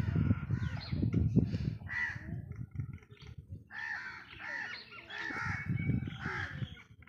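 A crow cawing repeatedly, in a quick run of calls that come thickest in the second half, over bouts of low rumbling noise that are loudest in the first two seconds.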